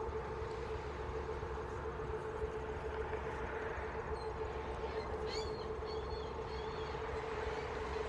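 Steady low rumble with an even hum from a passing container ship's engines, with a few faint high chirps a little past the middle.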